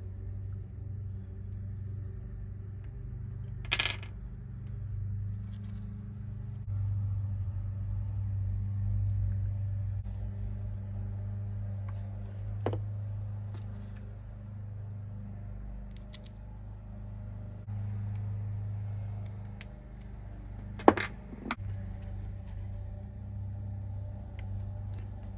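Small metal jockey-wheel washers and parts clinking down on a workbench: a few sharp clinks, the loudest near the end, over a steady low hum.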